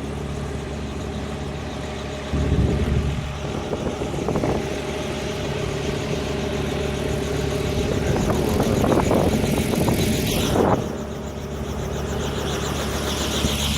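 Steady engine noise from a running vehicle, a low hum with a steady tone. It gets louder a couple of seconds in, swells again later, then eases off sharply.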